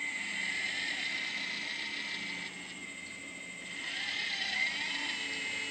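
Kabolite 970 RC excavator's motor and hydraulic pump running with a steady high whine while the arm and bucket dig through soil. The whine drops off a little midway, then swells and glides up in pitch about four seconds in.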